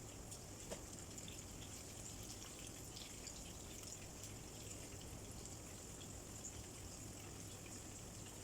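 Butterfly shrimp frying in hot oil: a steady sizzle with small scattered crackles.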